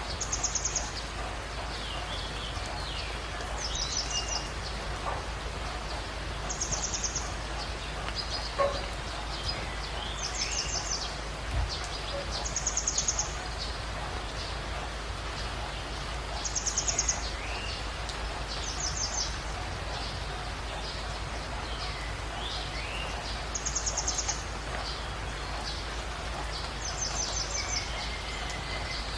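Birds calling over a steady background hiss: one bird repeats a short, high, buzzy trill every couple of seconds, while others give shorter curved whistled notes lower down.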